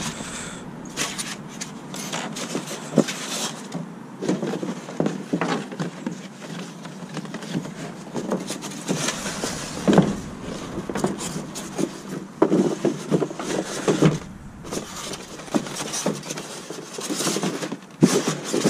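Handling noise: a cardboard box, a styrofoam packing insert and a paper manual being shuffled and packed on a truck tailgate, with irregular rustles, knocks and scrapes.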